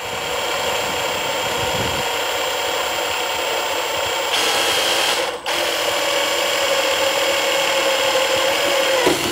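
Electric drill running steadily as a twist bit bores slowly, with light pressure, through a sheet-metal toolbox corner. The motor dips briefly about five seconds in, then runs on and stops near the end.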